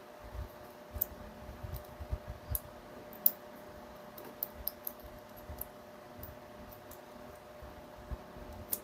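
Scattered small clicks and light knocks of fingers handling a drill's small replacement carbon brush and its lead wire, with the loudest click about three seconds in, over a steady faint hum.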